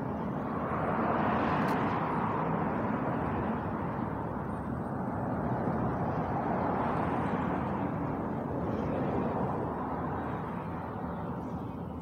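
Rushing noise of road vehicles, swelling and fading several times as they pass, easing off near the end.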